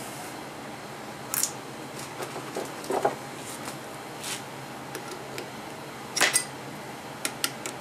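Light metallic clicks and clinks as pipe fittings on a railroad air brake valve are handled: about half a dozen separate taps, the loudest about six seconds in, over a faint steady hum.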